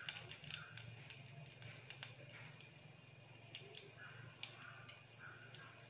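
Mustard seeds heating in a little oil in a clay pot, giving faint scattered crackles and pops over a low steady hum as they start to splutter.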